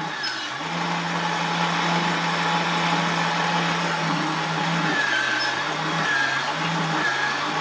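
Small electric motor of a 1979 Kenner Betty Crocker Juicer Blender toy spinning its plastic juicer reamer with steady hum while an orange half is pressed down on it. About halfway through the hum sinks in pitch and wavers as the motor is loaded by the pressing, and several short high squeaks come in the second half.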